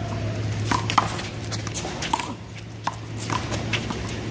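Rubber handball being slapped by hand and smacking off a concrete wall during a one-wall handball rally: a string of sharp smacks at uneven intervals, over a steady low hum.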